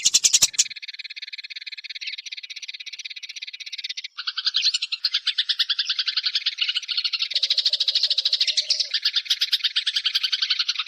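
Eurasian tree sparrows chirping in a dense, rapid chatter, many chirps a second. About four seconds in there is a sudden break, and the chirping comes back fuller and lower-pitched.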